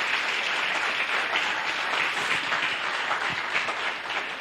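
Audience applauding, many hands clapping together, the applause dying down near the end.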